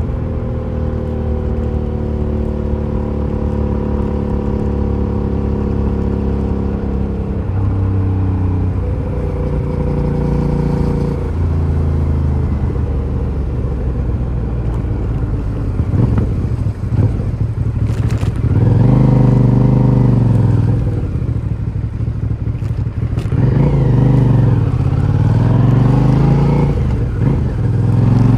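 Aprilia Shiver 750's V-twin engine on its stock exhaust while riding: it holds steady revs, drops in pitch a few times in the first half as it shifts gear, then rises and falls in pitch again and again through the second half as it accelerates and shifts, loudest during those runs.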